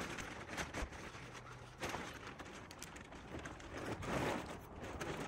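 Tent fabric rustling and crinkling in irregular bursts as it is folded and rolled up by hand.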